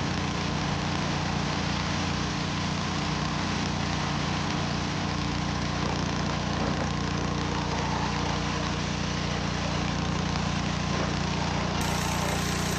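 Engine-driven pressure washer running steadily, with the constant hiss of its water spray.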